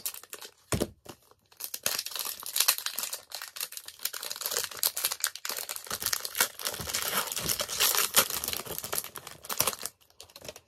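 A foil Pokémon booster pack being torn open and crinkled in the hands. A dense run of crackling starts about a second and a half in and stops near the end, after a single thump just before it.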